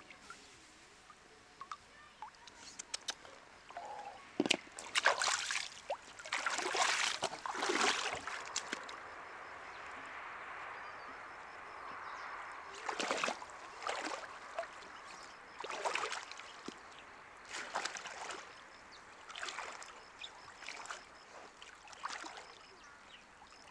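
Shallow stream water splashing and sloshing in irregular bursts as a person wades through it and reaches into it, over a steady trickle of flowing water.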